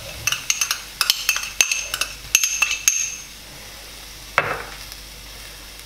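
A metal utensil tapping and scraping diced shallots out of a small ceramic bowl into a stainless steel frying pan: a quick run of light clinks with a short ring. The clinks stop about three seconds in, and one soft knock follows.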